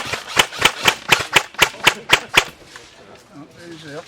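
Airsoft gun firing a rapid string of about ten sharp shots, about four a second, stopping about two and a half seconds in.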